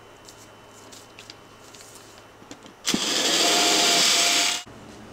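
Cordless drill boring into the sailboat's hull to oversize a screw hole: one loud run of about a second and a half, with a steady whine, that starts about three seconds in and stops abruptly. Before it there are light rustles and taps of paper and tape.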